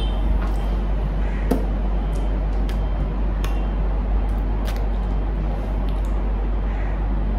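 A steady low hum, with a few faint light clicks and taps from a lipstick tube being handled.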